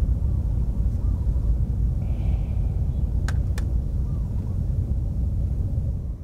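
Wind buffeting the microphone: a heavy, steady low rumble. Just past the middle, two light clicks about a third of a second apart as a cup is set down on a small camp table.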